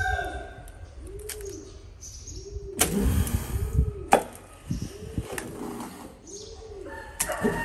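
A dove cooing over and over in a steady low rhythm, with a few sharp clacks scattered through, the loudest about four seconds in.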